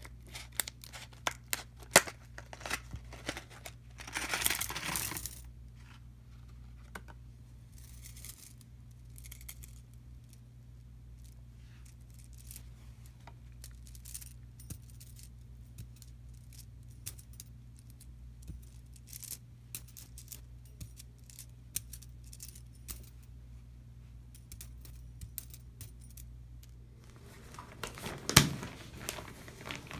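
Beaded metal shower curtain hooks clinking and jingling as they are handled and set down, in many small sharp ticks. Plastic packaging crinkles and rustles, loudest about four seconds in, with a steady low hum underneath and a louder knock near the end.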